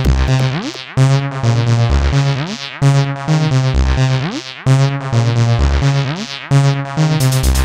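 Electronic music: a synthesizer melody over a bass line, with a phrase and a rising swoop repeating about every two seconds.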